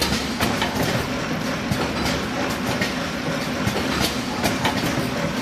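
Sparkler packing machine running: a steady mechanical hum with frequent sharp clicks and clatter.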